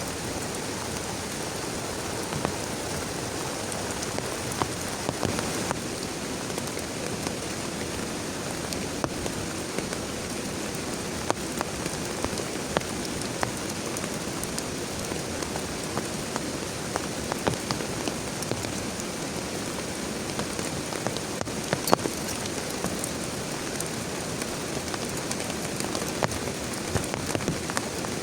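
Heavy rain falling steadily, with many individual drops striking sharply on a nearby surface.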